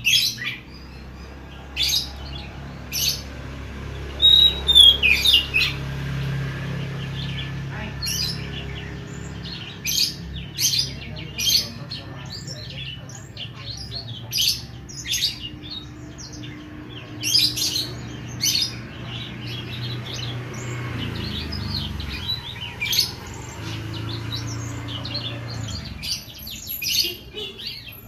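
Caged oriental magpie-robin (kacer) singing freely: bursts of short, sharp chirping notes with pauses between phrases, over a low steady hum.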